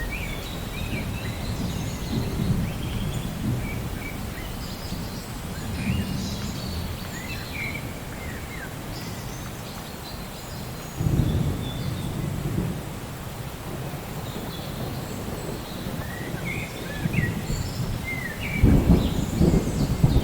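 Thunder rumbling over a steady hiss of rain, with a sudden louder rumble about eleven seconds in and another near the end. Small birds chirp in short, quick calls throughout.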